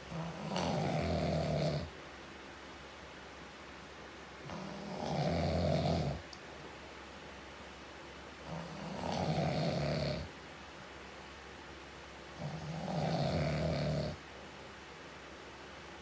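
A man snoring steadily: four snores, each about a second and a half long, coming about every four seconds.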